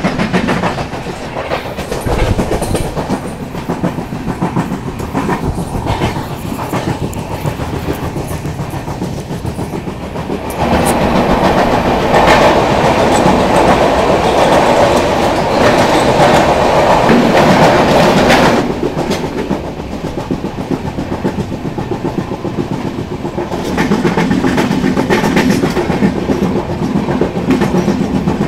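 Mandovi Express passenger train running at speed, with its wheels clattering along the rails, heard from an open coach doorway. From about ten seconds in until about eighteen seconds it grows louder and fuller as the train passes through a tunnel, then drops back.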